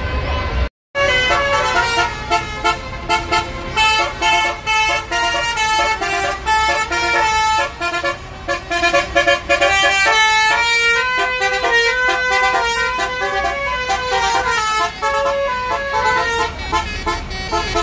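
A bus's multi-tone "basuri" telolet horn playing a quick melody of stepping notes. It starts about a second in, after a brief break in the sound.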